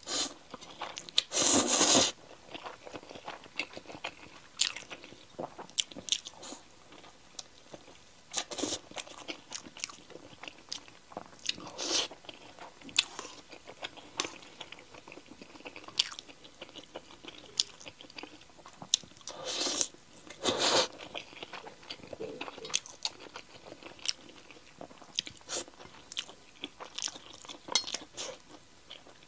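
Close-miked eating: a person chewing and biting with many short wet clicks, and two longer slurps of noodles, one about a second and a half in and another about two-thirds of the way through.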